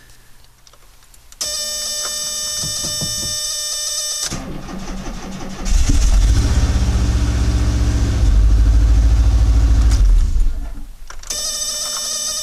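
A steady warning buzz sounds for about three seconds. Then the starter cranks and the Subaru boxer engine in the VW Vanagon catches about six seconds in and runs loudly for several seconds before settling. The buzz returns near the end.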